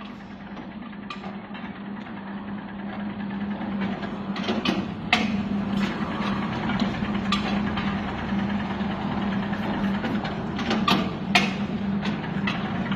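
Mushroom-substrate bagging machine running: a steady motor hum that grows louder over the first few seconds, with irregular sharp clacks as it fills and compresses the sawdust bags.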